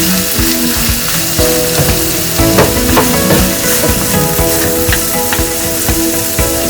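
Boiled mutton with vegetables and spices dry-frying in a pan, sizzling steadily, with scattered clicks and scrapes of it being stirred.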